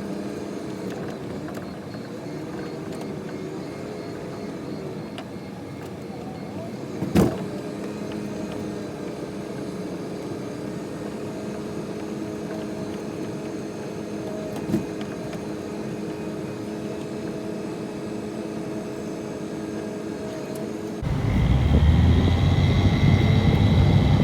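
The engine of a snow-plowing vehicle running steadily while it pushes snow. There is a sharp knock about seven seconds in and a lighter one about halfway through. About three seconds before the end the engine grows much louder and deeper.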